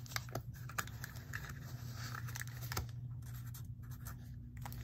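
A pen scratching as numbers are written by hand, with a few light clicks and taps, over a steady low hum.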